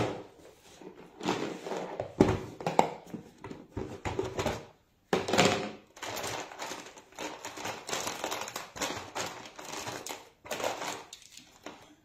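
Art materials being handled and rummaged through on a table: irregular clicks, knocks and rustling, with a few louder knocks.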